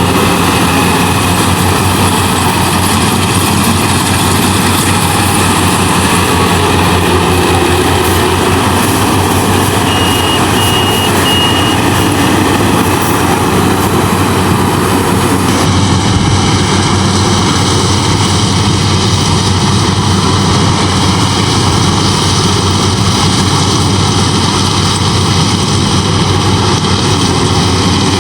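Yanmar AW70 VW combine harvester running steadily while harvesting rice: its diesel engine and threshing machinery make a dense, even mechanical noise. The high hiss drops away abruptly about halfway through.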